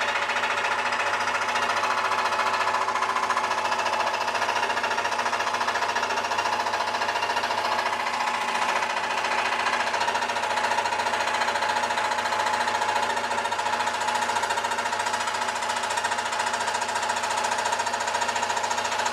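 Scroll saw running steadily, its reciprocating blade cutting through a thin copper sheet fixed to a wooden backing board.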